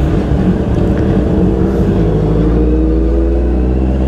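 Big motorcycle's engine running steadily while riding, its note rising a little near the end as the revs climb.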